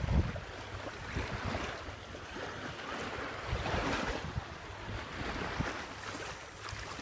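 Shallow sea water lapping and sloshing, with wind buffeting the microphone, strongest near the start.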